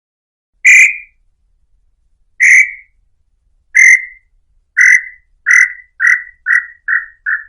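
Tataupa tinamou (inhambu-chintã) singing: a series of about nine short notes that start about a second in, come faster and faster and drop slightly in pitch toward the end.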